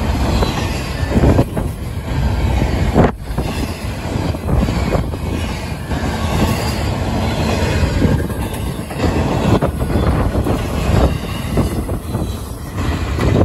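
CSX double-stack intermodal freight train's well cars rolling past close by, steel wheels rumbling on the rails with irregular clacks and knocks as the cars go over the track.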